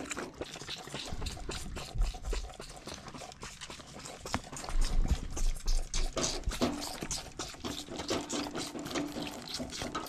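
Two orphaned lambs sucking and slurping milk from bottles held one in each lamb's mouth: a quick, steady run of wet sucking clicks, with a few dull bumps in the middle.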